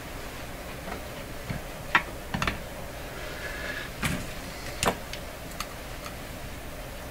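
Hand tools being handled on a workbench: about five light clicks and taps as pliers and other small tools are picked up and set down, spread over a few seconds.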